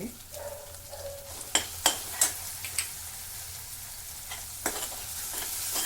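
Onion masala sizzling in oil in a pan, with a spoon clicking sharply against the pan five or six times as turmeric and chilli powder go in. The sizzle grows a little toward the end.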